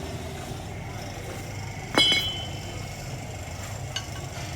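A single sharp metallic clink about two seconds in, ringing briefly, then a smaller click near the end: metal tools or parts knocking together during steering work on a car.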